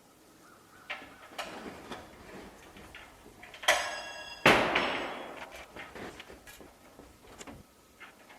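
Scattered knocks and taps from building work, then a brief metallic ring about three and a half seconds in, followed by the loudest sound, a heavy bang that dies away over about a second.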